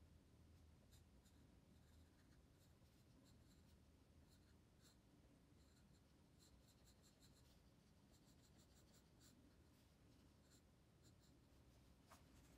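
Faint scratching of a pencil on paper: quick, short hatching strokes in runs, with a small tick near the end.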